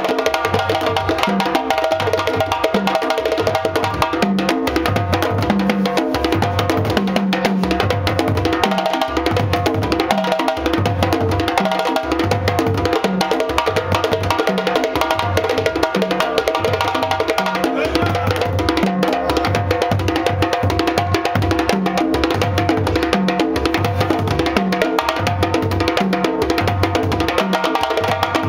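Several hand-played djembe drums: a lead djembe solo over interlocking djembe accompaniment, in a fast, unbroken rhythm. Deep bass tones recur in a regular pattern under dense sharp slaps and tones.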